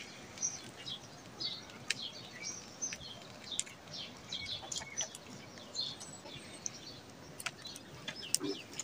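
Small birds chirping and twittering in short, high calls throughout, with a few sharp clicks scattered among them.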